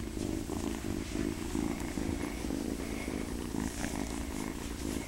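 A young calico kitten purring steadily while being petted, a sign of contentment.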